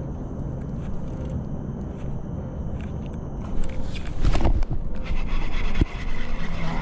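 A steady low hum, then about three and a half seconds in, knocks and a heavy thump as a baitcasting rod and reel are handled, followed by a cast: the reel's spool whirs as line pays out to the frog lure.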